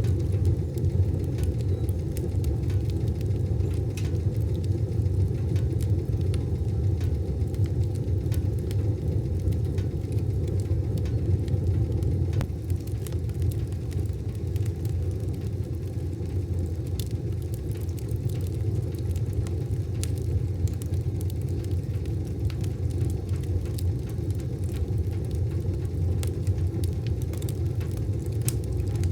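Wood fire burning in a wood stove: a steady low rumble of the flames with scattered sharp crackles and pops.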